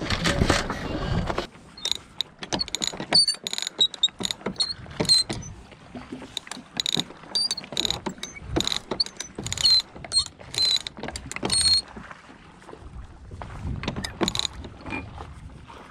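Sailboat winch being cranked with a winch handle: irregular ratcheting clicks with short high metallic squeaks, thinning out near the end.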